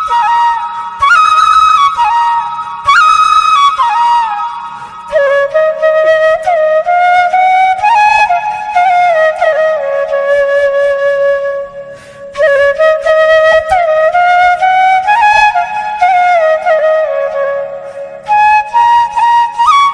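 Background music: a solo flute melody of long held notes that slide and bend between pitches.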